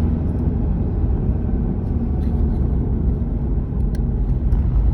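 Renault Megane on the move: a steady low engine and road-noise rumble heard from inside the car.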